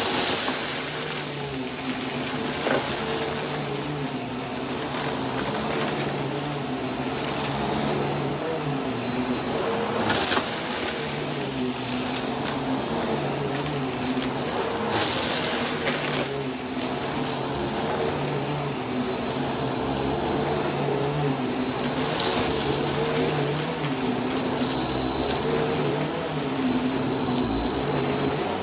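Vacuum cleaner running continuously, its motor note wavering up and down as it is worked back and forth over a rug. Crunchy debris is sucked up in hissy bursts, louder at the start and several times later.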